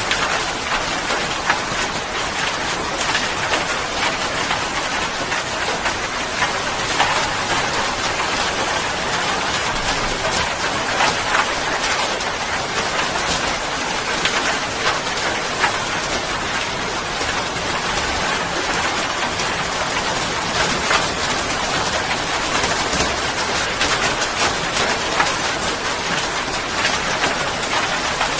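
Steady rain falling, with a dense patter of drops hitting a surface.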